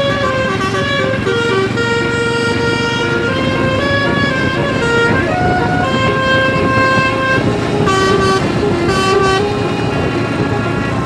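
Indonesian 'basuri' telolet bus horns playing a melody of held notes that step up and down in pitch, one tune running straight into the next, over a steady low rumble of engines.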